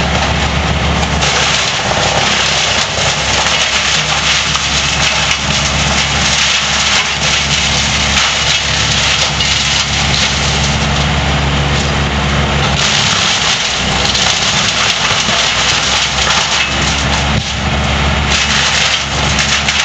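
Engine-driven tree-removal machinery running steadily: a heavy engine under a loud, even noise, shifting slightly in tone a few times.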